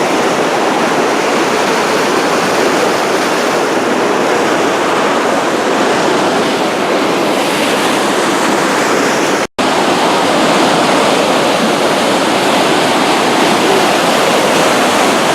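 Waterfall rushing, a steady, really loud roar of falling water. The sound cuts out for an instant about nine and a half seconds in.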